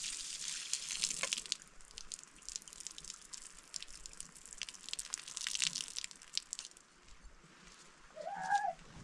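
Liquid pouring in a thin stream from a metal pot and spattering onto bare earth, in two spells: during the first second or so, and again from about four to seven seconds in. A brief pitched call near the end.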